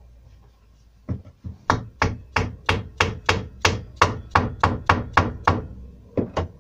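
Hammer striking a wooden block held against a shelf panel, knocking the joint together during assembly. About fifteen sharp knocks come nearly three a second, starting about a second in, then a short pause and two more near the end.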